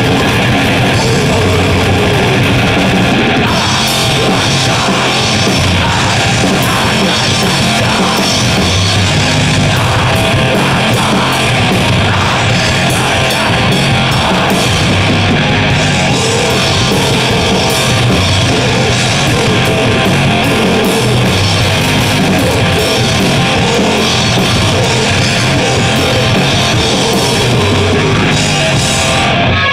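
Grindcore song played on distorted electric guitar and drum kit, with dense, loud, continuous band sound.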